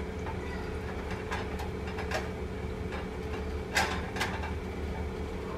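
A silicone spatula scraping and knocking against a skillet as chicken pieces in teriyaki sauce are stirred: a handful of short scrapes, the loudest about four seconds in, over a steady low hum.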